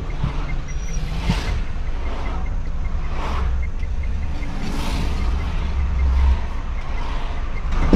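Steady low engine and road rumble of a taxi driving, heard from inside the car. Oncoming cars pass with a whoosh three times.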